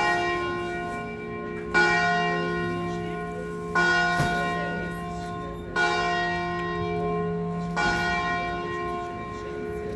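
A single church bell tolling, struck about once every two seconds, each stroke ringing on and fading before the next.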